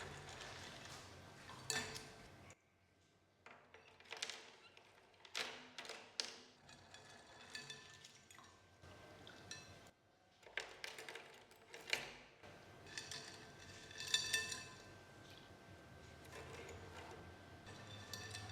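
Small metal parts and tools clinking, tapping and knocking on a hard surface: a run of separate short clinks, one of them ringing briefly about three-quarters of the way through.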